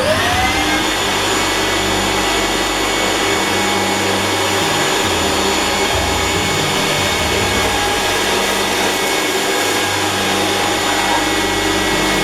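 A small electric motor starts with a quickly rising whine, then runs at a steady speed with a loud rushing noise.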